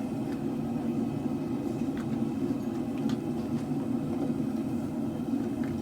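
Propane forge burners running with a steady rumbling roar, with a few faint clicks.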